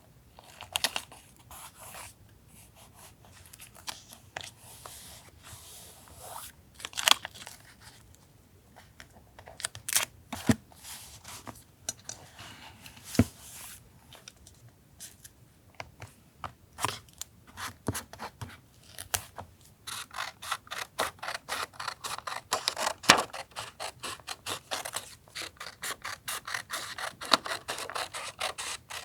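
Paper collage work: scattered taps and scrapes of paper being handled, then from about twenty seconds in a fast run of small scissor snips cutting paper.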